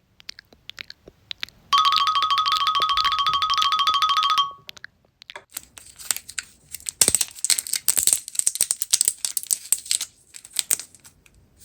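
A steady buzzing electronic ring lasts about three seconds. Then comes a long run of crisp crackling and crunching clicks from slime being squeezed and worked.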